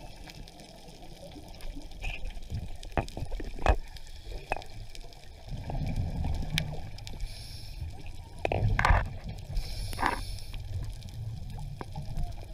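Underwater sound from a scuba diver's camera: exhaled bubbles gurgling in swells, loudest about five and a half and eight and a half seconds in, over a low rumble with scattered sharp clicks.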